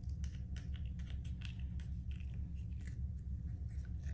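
Irregular small clicks and crackles of things being handled, over a steady low hum.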